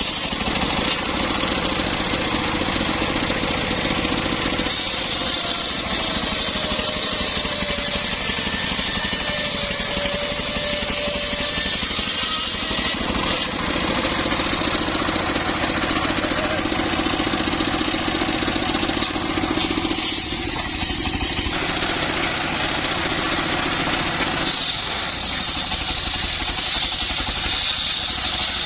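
Engine-driven saw running and cutting mahogany timber: a steady mechanical din with a thin whine that slides in pitch, and the sound changing abruptly several times.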